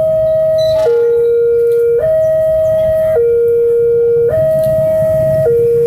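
Railway level-crossing warning alarm sounding a steady electronic two-tone, switching between a higher and a lower tone about every second, warning that a train is approaching. A low rumble runs underneath.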